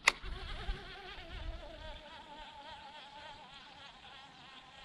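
Flying insects buzzing around, a steady drone whose pitch wavers rapidly as they circle. A brief sharp click at the very start.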